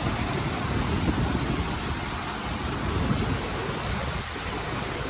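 Heavy rain falling: a steady, dense hiss with a low rumble underneath.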